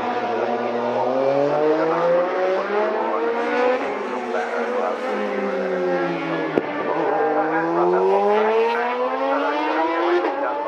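Racing motorcycle engines at high revs, the pitch climbing, falling away and climbing again, with the lines of more than one bike overlapping. A sharp click comes just past the middle.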